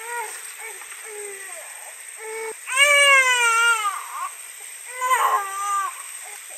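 Baby crying: a few short wails, then a long rising-and-falling wail of about a second in the middle and another shorter wail near the end.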